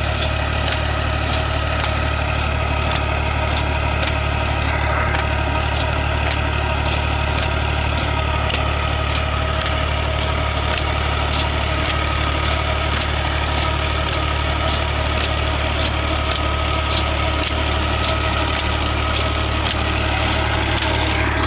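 Ghazi tractor's diesel engine running steadily under load, driving a tubewell pump through its PTO shaft, with a light regular ticking about twice a second.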